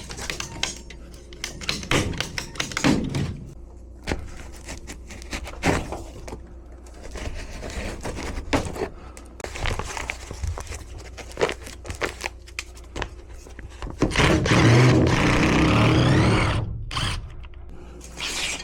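Hand tools and metal and plastic parts knocking, clunking and scraping as an old HVAC indoor unit's drain and fittings are taken apart, with a louder grinding scrape lasting a couple of seconds near the end.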